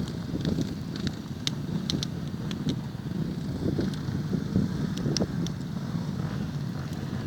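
Motorcycle engines running with a steady low rumble, wind buffeting the microphone, and scattered light clicks.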